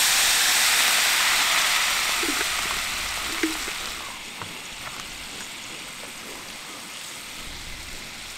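White wine sizzling as it is poured into a hot pan of oil and garlic: a loud hiss that slowly dies down over the first four seconds into a quieter steady simmer.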